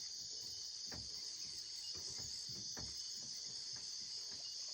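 Steady, high-pitched chorus of insects droning without a break, with a few faint low knocks about a second in and near the three-second mark.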